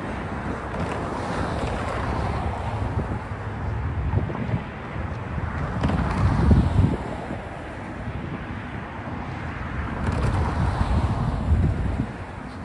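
Road traffic driving past, cars one after another, swelling loudest about halfway through and again near the end, with wind buffeting the microphone.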